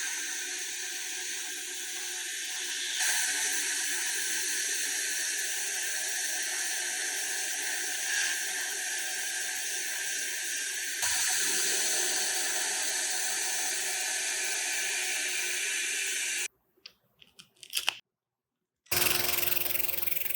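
A power tool running steadily, with a hissing sound that jumps in level at two abrupt cuts. It stops suddenly about 16 seconds in, and after a short silence a different sound begins near the end.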